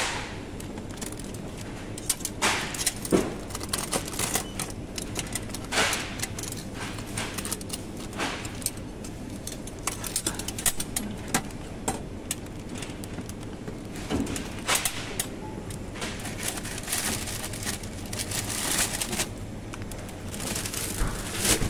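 Supermarket ambience: a steady low hum with scattered clicks, rattles and clatter of goods being handled.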